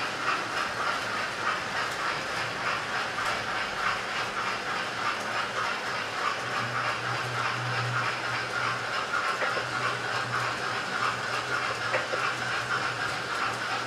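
Model trains running on a layout: a steady, rapid rhythmic clicking of wheels and mechanisms on the track, with a low motor hum that grows louder about halfway through as a steam-outline locomotive and coaches approach.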